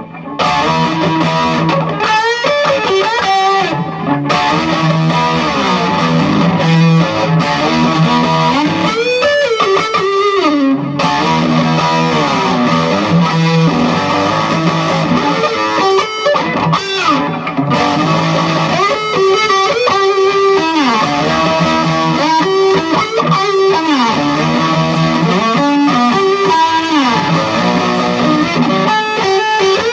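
Epiphone Les Paul Special II electric guitar playing a song, single notes and chords with frequent slides up and down the neck, picked up through a laptop microphone.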